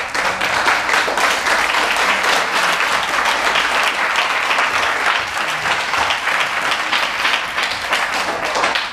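A roomful of people applauding: dense, even clapping throughout that stops abruptly near the end.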